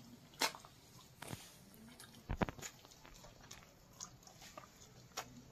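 A person chewing a mouthful of chicken curry with roti by hand, close to the microphone: scattered soft smacks and clicks of the mouth, loudest in a short cluster about halfway through.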